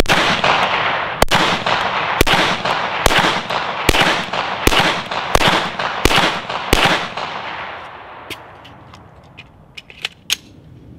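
Handgun shots fired one at a time at a steady pace, about one a second, nine in a row, each trailing into a long echo: the end of a slow, aimed ten-round group. A few light clicks follow near the end.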